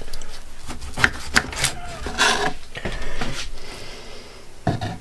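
Knife cutting through soft roasted eggplants on a wooden cutting board: several sharp knocks of the blade on the board and short slicing scrapes.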